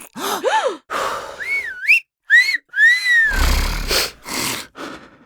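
A quick montage of human mouth sounds: short gasps and a single exhaled breath, then a sharp whistle to hail a cab and a strong two-part wolf whistle that rises and then falls. It ends with noisy breathy bursts, like a snort or sniffs.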